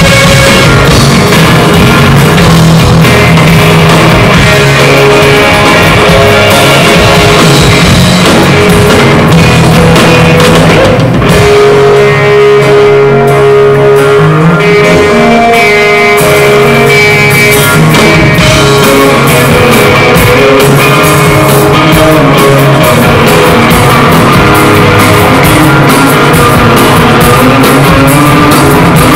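A live rock band playing loud in a concert hall, electric guitar over a drum kit, heard from among the audience. A long held note stands out near the middle.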